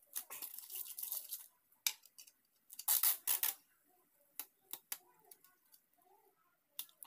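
Sticky tape being pulled and torn off a roll: two noisy pulls, the first about a second and a half long and the second under a second, with light clicks and taps of handling between.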